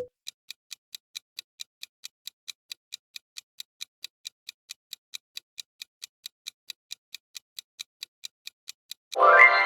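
Countdown-timer sound effect: a steady clock-like ticking at about four ticks a second. Near the end, a short, louder musical sting cuts in.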